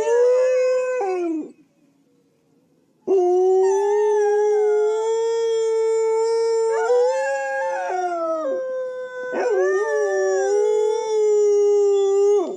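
A pack of canines howling together: long, held howls from several overlapping voices. The chorus breaks off about a second and a half in and starts again after a short pause.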